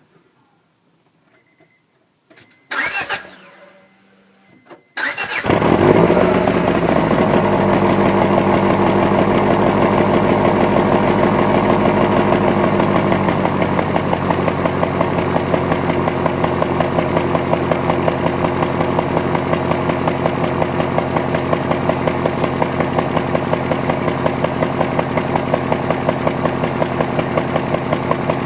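2001 Honda Prelude's four-cylinder engine started cold. A short noise about three seconds in, then the engine catches about five seconds in and runs at a fast idle that drops about eight seconds later. It idles with a steady pulsing, the rough morning running of an engine logging a cylinder 2 misfire, which the owner suspects comes from worn piston rings.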